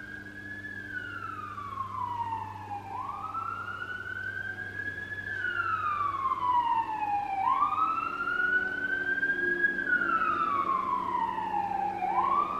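Emergency vehicle siren in a slow wail, its pitch rising and falling in cycles of about four and a half seconds, getting gradually louder as it approaches.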